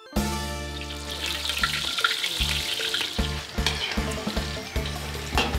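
Small fish deep-frying in a wok of hot oil, the oil sizzling and crackling steadily. Background music with steady low tones plays underneath.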